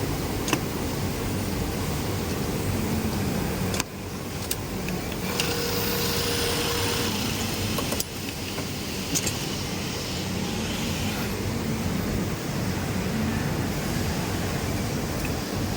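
Industrial sewing machines running in a garment factory: a steady mechanical din with a few sharp clicks. The sound changes abruptly about 4 and 8 seconds in.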